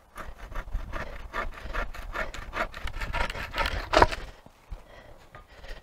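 Folding hand saw cutting through a thick branch with quick, rapid back-and-forth strokes, ending in a loud crack of the wood about four seconds in as the cut goes through.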